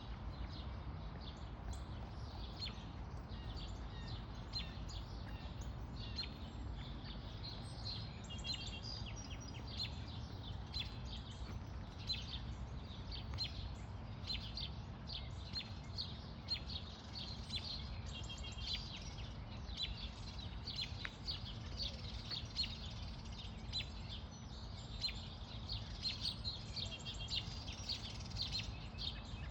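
Small songbirds chirping and trilling steadily in the background over a constant low rumble of ambient noise with a faint steady hum.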